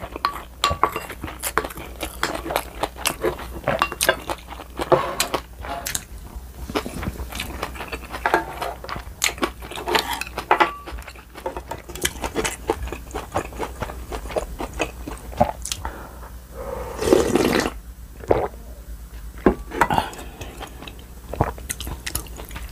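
Close-miked eating: chewing and crunching of rice and kimchi, with many small clicks and clinks of a wooden spoon and chopsticks against ceramic bowls and plates. A louder, longer breathy sound comes about three-quarters of the way through.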